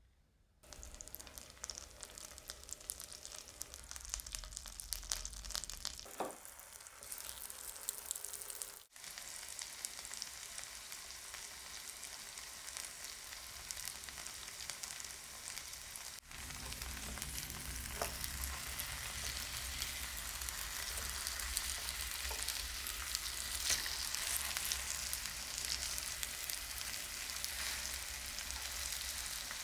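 Food sizzling and crackling in a frying pan, a steady spitting hiss that cuts briefly twice and comes back louder after about 16 seconds.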